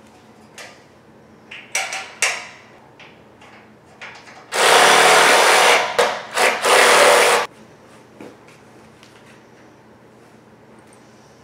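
Cordless drill with a hex bit driving a bolt into a metal bed-frame joint: one run of about a second and a half, two short blips, then a second short run. A few light knocks and clicks come before it.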